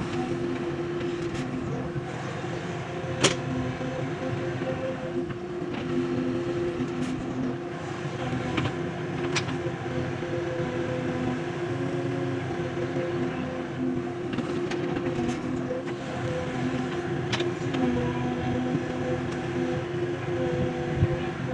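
JCB excavator's diesel engine running steadily under hydraulic load while digging, its pitch wavering slightly. There is a sharp knock about three seconds in and a few fainter clicks later, typical of the bucket striking.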